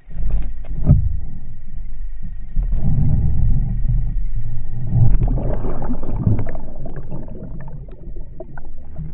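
Loud underwater rumbling and water rushing, with scattered knocks, from a submerged camera rig being jerked about as a pike strikes the lure. It starts suddenly just after the start and eases off near the end.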